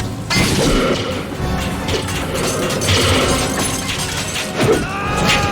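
Action-film soundtrack: dramatic score under a dense mix of crashing and metallic impact sound effects, with several sharp hits.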